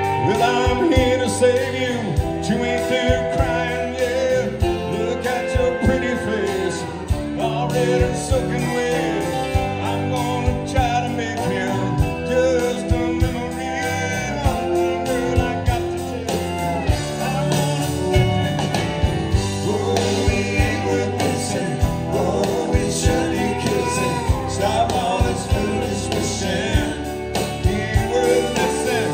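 Live country band: a male lead voice singing a slow song over strummed acoustic guitars, with drums keeping the beat.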